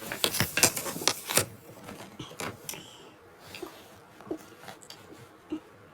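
Quick clicks and clatter of small objects being handled, dense for about the first second and a half, then a few scattered taps.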